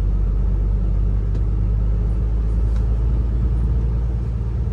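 Tractor-unit truck's diesel engine running steadily at low speed, heard from inside the cab as an even low rumble.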